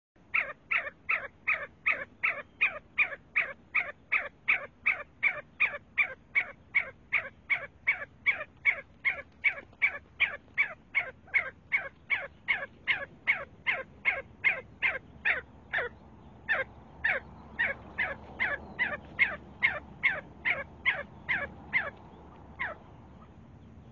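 See-see partridge calling: a long, even run of short, sharp notes, each sliding down in pitch, about three a second. The calls break off briefly about sixteen seconds in, resume a little less regularly, and stop shortly before the end.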